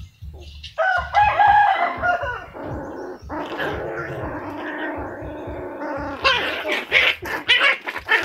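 Rooster crowing: one long drawn-out crow starting about a second in and held for several seconds, followed near the end by a quick run of sharp, scratchy sounds.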